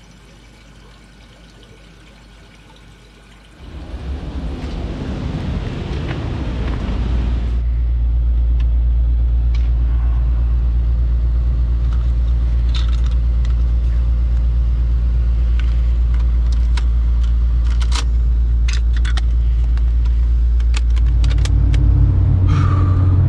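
The engine of a 1988 Isuzu Trooper starts about three and a half seconds in and settles into a steady low running rumble, heard from inside the cab. Light plastic clicks and rattles of cassette cases being handled come over it.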